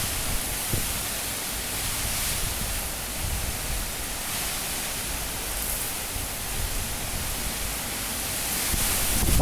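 Cyclone-force wind rushing steadily, with a gust swelling near the end.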